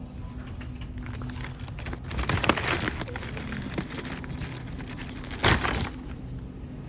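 Plastic shrink-wrap on a case of bottled water crinkling as the case is handled, with two louder rustles, about two seconds in and about five and a half seconds in.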